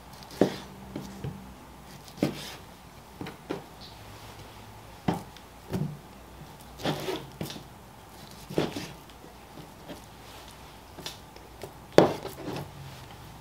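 Butcher's knife slicing chuck eye steaks on a plastic cutting board: irregular soft knocks and scrapes as the blade draws through the beef and meets the board, the loudest about twelve seconds in.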